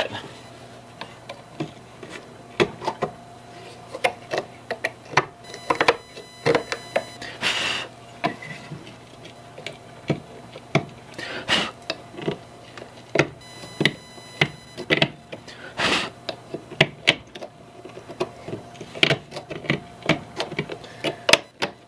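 A small scraper picking and scraping inside the wooden knob of an old hand plane, digging out packed junk: irregular clicks and short scrapes, with a steady low hum underneath.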